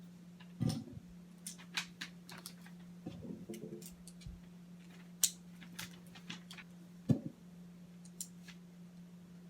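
Small plastic LEGO pieces clicking and snapping together as plates are pressed onto Technic beams, in irregular sharp clicks with two louder knocks, about a second in and about seven seconds in. A steady low electrical hum runs underneath.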